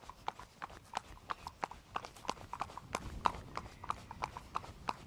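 A pony's hooves clip-clopping on a tarmac path at a trot, a quick run of sharp, uneven clicks.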